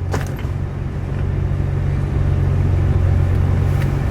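Car engine idling steadily, with a short knock just after the start and a faint click near the end.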